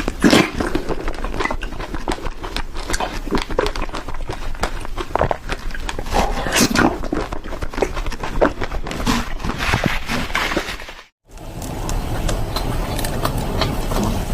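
Close-miked eating sounds: chewing and crunching of sweets, a dense run of crisp bites and wet smacks. A brief silent cut about eleven seconds in, then finer crackling chewing.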